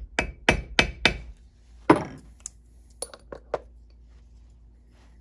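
A hammer strikes a hand snap-setter post seated on a steel base, setting a THK snap through leather. Four quick blows come about three a second, then a harder single blow with a short ring about two seconds in, then three lighter knocks around three seconds in.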